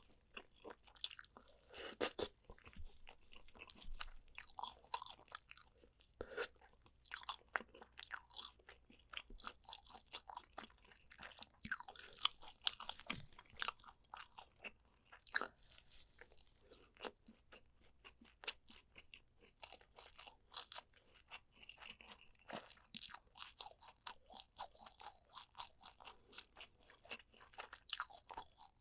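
Close-miked chewing and biting of spicy soy-braised pork back ribs, heard as a dense, irregular run of sharp wet clicks and crunches.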